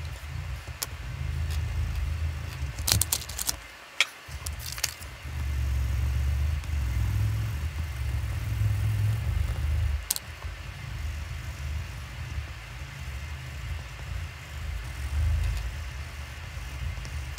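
Crayon rubbing on paper over a tabletop: an uneven low rumble, with a few sharp clicks about three to five seconds in and again about ten seconds in, as crayons are set down and picked up.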